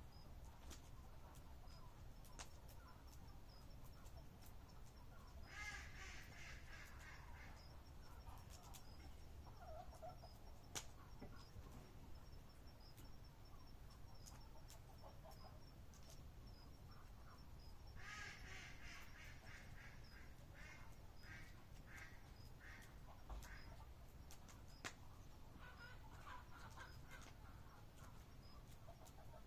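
Faint animal calls in two bursts of rapid, repeated pitched notes, about six seconds in and again from about eighteen seconds, over scattered faint clicks and a faint high ticking about twice a second.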